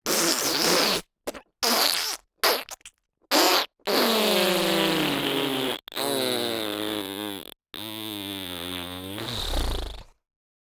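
Wet fart sound effects: a quick run of about six short, sputtering wet bursts, then three long, drawn-out wet farts with a wobbling pitch, the last ending in a low rumble.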